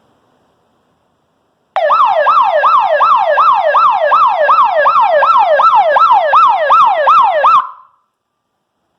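Outbuilding alarm system's electronic siren horn going off after its 5-second entry delay, triggered by the motion sensor. It is extremely loud, a fast siren sweeping up and down in pitch about three times a second. It starts suddenly almost two seconds in and cuts off about six seconds later.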